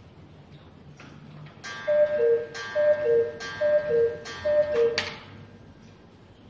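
Three-weight cuckoo clock striking four: four two-note cuckoo calls, high then low, each set off by a sharp clack with a ringing tone, over the clock's ticking.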